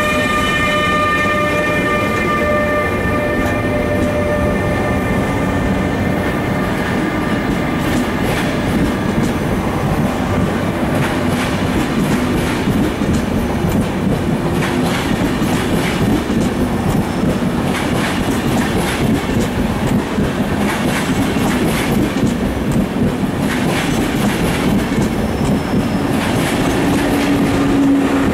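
ÖBB Railjet train passing close by: the Class 1116 Taurus electric locomotive's whine of several steady tones fades over the first few seconds. Then comes the steady rumble of the coaches' wheels with clicks over the rail joints, and near the end a low hum grows as a second 1116 locomotive comes past.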